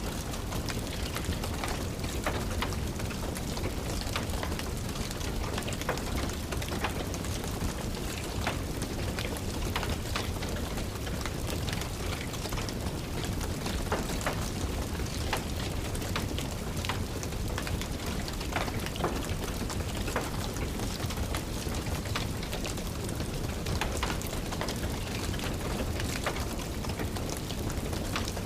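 Steady rain falling and tapping, mixed with a wood fire in a fireplace, which gives frequent irregular crackles and pops.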